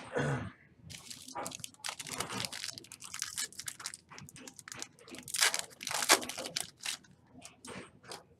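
Foil trading card pack wrappers being torn open and crinkled by hand, an irregular run of tearing and crackling with the loudest rips about two-thirds of the way through.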